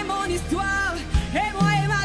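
Live gospel worship music: a voice singing a gliding, wordless melody line over a band with a steady bass.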